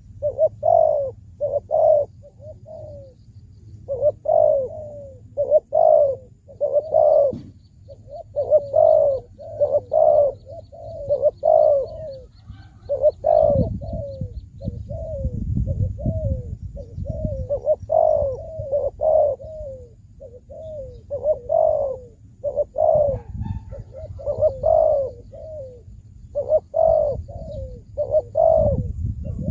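Spotted dove cooing over and over, in short phrases of two or three notes.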